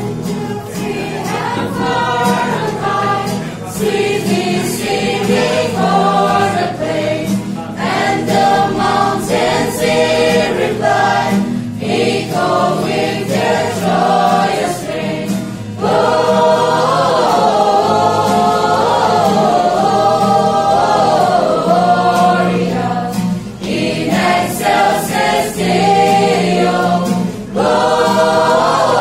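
A small group of voices, mostly women's, singing a Christmas carol together, accompanied by a strummed acoustic guitar. The singing grows louder about halfway through.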